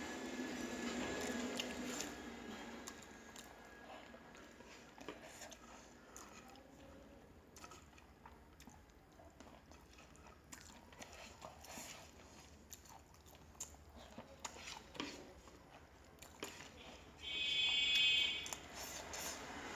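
Quiet chewing and small mouth clicks while eating a rice meal. A loud buzzing tone lasts about a second near the end.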